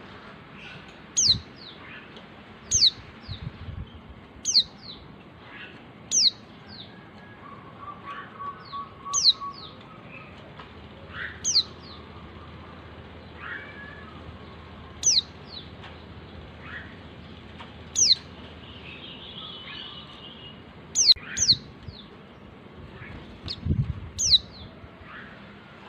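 Female white-eye (Zosterops) giving its call to a male: a short, sharp note falling steeply in pitch, repeated about a dozen times at one- to three-second gaps, with fainter birds chirping behind.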